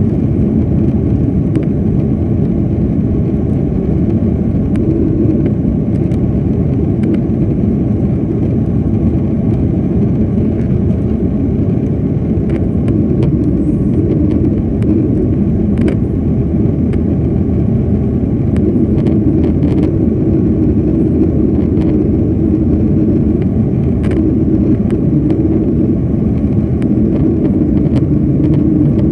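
Jet airliner cabin noise during the climb after takeoff: a steady, loud drone of the engines and the air rushing past the fuselage, heard from inside the cabin.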